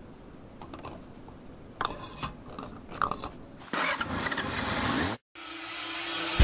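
A few light clicks, then a Yamaha inline-four sportbike with a Yoshimura RS-3 exhaust revving, rising in pitch for about a second and a half before it cuts off abruptly. After that comes a rising whoosh over a steady hum, building to a boom at the very end.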